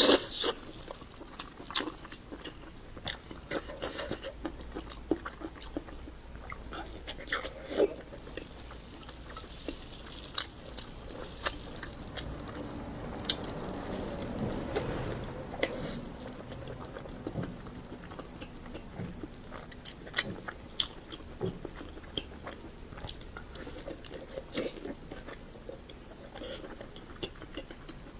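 A person biting and chewing food close to the microphone, with many sharp, crisp crunches scattered throughout and wet mouth sounds between them.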